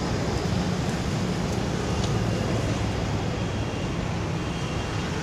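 Steady rumble of road traffic passing close by on the bridge deck, continuous and without pause.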